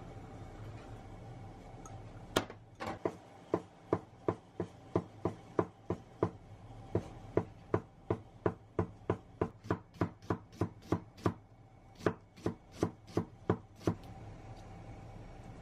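Kitchen knife chopping on a wooden cutting board: a steady run of knocks, about three a second, as rolled-up shiso leaves are finely shredded. It starts about two seconds in, pauses briefly near eleven seconds, and stops about two seconds before the end.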